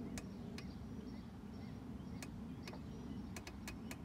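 Fuel injector solenoid clicking as jump-pack leads are touched to its terminals: a scattering of short, sharp clicks, several close together near the end, over a steady low background rumble. The injector clicks but is not spraying.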